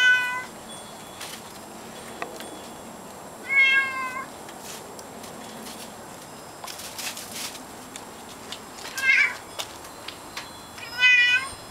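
Calico cat meowing four times, a few seconds apart, each a short call. The owner takes the meows for asking to be let back in out of the snow.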